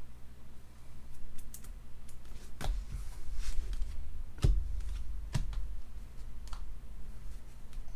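Typing on a computer keyboard: irregular key clicks, with a few harder knocks in the middle.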